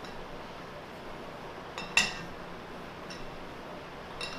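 Steel T-handle chuck key clinking against a four-jaw lathe chuck while the jaws are adjusted to centre a part: one sharp metallic clink with a brief ring about two seconds in, and lighter clicks about a second later and near the end, over a steady shop hiss.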